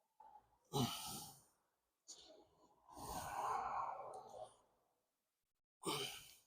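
A person breathing out heavily three times, the middle breath the longest.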